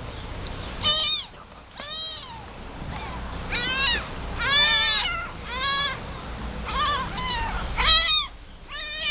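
Very young kittens mewing: short, high-pitched mews that rise and fall in pitch, about nine of them, roughly one a second.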